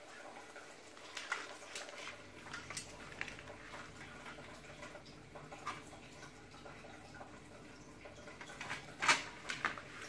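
Scattered light clicks and taps of tools and small parts being handled on a workbench, the loudest about nine seconds in, over a faint steady hum.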